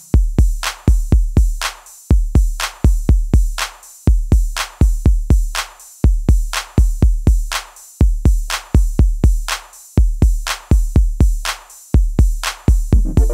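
Background electronic music: a drum-machine beat of deep kick drums and sharp hits, repeating in a steady pattern about every two seconds, with a synth melody coming back in near the end.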